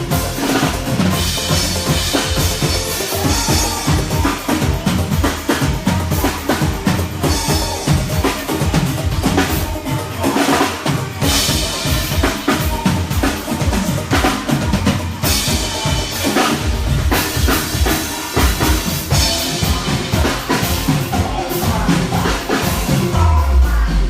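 Drum kit played live at a band sound check: bass drum, snare and cymbals in a steady rhythm, with other band instruments underneath.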